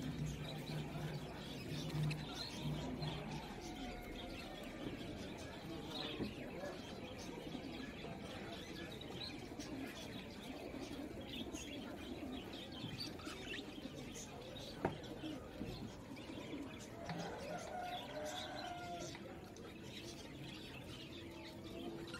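Background birdsong of chirps and cooing over a steady low room noise, with a single sharp click about fifteen seconds in.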